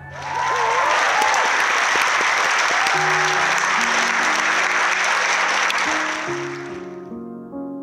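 A theatre audience applauding and cheering, with a few whoops in the first couple of seconds; the applause fades out about seven seconds in. Soft, slow piano notes start underneath about three seconds in.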